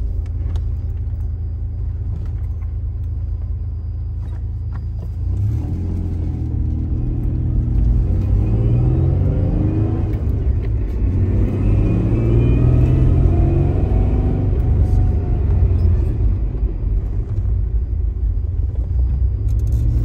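Third-generation Toyota 4Runner engine heard from inside the cab under way: a steady low rumble at first, then from about five seconds in, louder, its pitch climbing and dropping several times as the truck accelerates through the gears.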